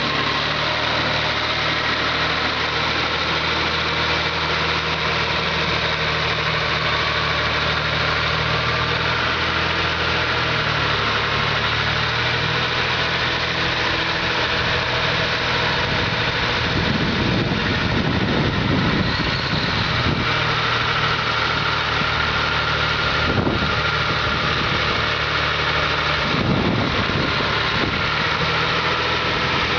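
A 1969 Rayes Commander 1200 tractor's Cummins 378 V6 turbo diesel engine idling steadily. A single short knock comes about three-quarters of the way through.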